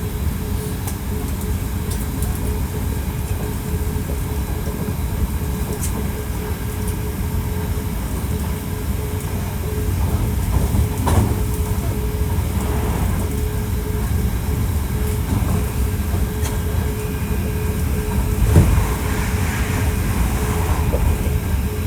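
Hankyu 1300 series electric train running at speed: a steady low rumble of wheels on rail with a constant thin hum and occasional light clicks. It gets slightly louder about halfway through, and there is a single louder knock near the end.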